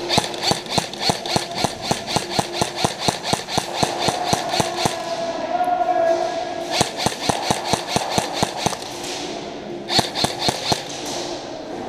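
Airsoft guns firing rapid shots, about five a second, in three strings: a long one of about five seconds, a shorter one in the middle and a brief one near the end.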